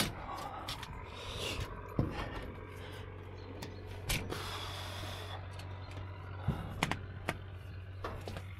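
Scattered knocks and clicks, with one short scrape about four seconds in, as a long black mounting rail is handled against steel roof sheeting and solar panel frames, over a steady low hum.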